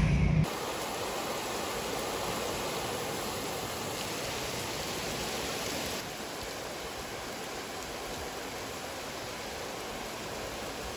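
A low rumble cuts off about half a second in, giving way to a steady rushing noise that drops a little in level about six seconds in.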